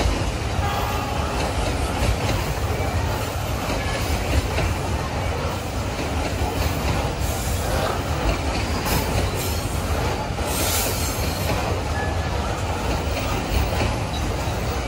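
Freight train of loaded coal gondola wagons rolling past close by: a steady heavy rumble of steel wheels on the rails, with some wheel squeal.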